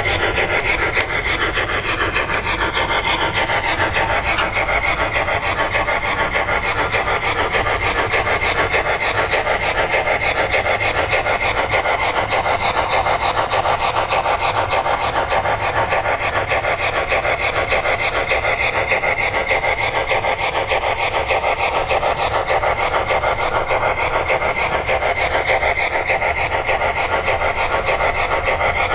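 Steam exhaust chuffing from the Proto-Sound 3.0 sound decoder in an MTH HO scale PRR 2-8-2 Light Mikado locomotive: rapid, even chuffing that runs together at a steady level as the engine moves along.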